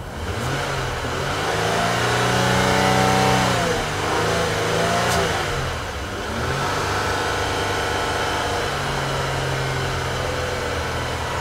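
A 2011 Ford Taurus Limited's 3.5-litre V6 revved in park, heard inside the cabin. Engine speed climbs from idle, holds for a second or two, drops back, then climbs again about six and a half seconds in and holds steady near 3,000 rpm.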